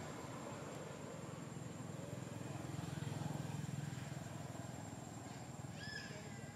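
Low engine rumble of a passing motor vehicle, swelling about halfway through and then fading. Near the end come a few short, high, gliding calls from an unseen animal.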